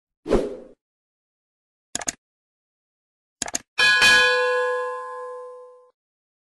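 Subscribe-button animation sound effects: a thump as the button appears, a quick double mouse click about two seconds in, another double click, then a notification bell ding that rings out and fades over about two seconds.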